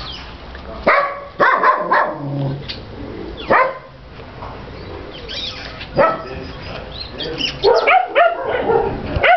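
A dog barking in scattered bouts, with a quicker run of barks near the end.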